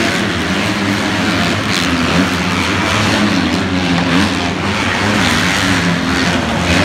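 Several motocross dirt bike engines racing around the track, revving up and down as the bikes work through the turns and jumps.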